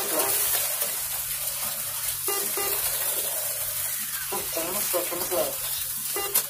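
Slot cars racing around a four-lane track: a steady high hiss from their small electric motors, with indistinct talk now and then.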